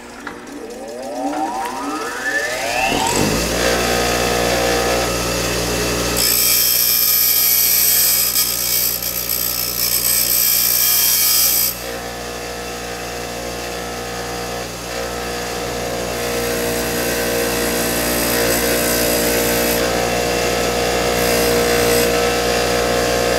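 Bench grinder motor spinning up to speed over the first three seconds, then running with a steady hum. The cut end of a brake line is ground against the wheel with a loud high hiss for about five seconds in the middle, then lighter grinding near the end, deburring and chamfering the tube end.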